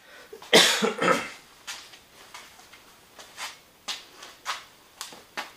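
A loud noise about half a second in, followed by footsteps on a concrete floor, about two steps a second.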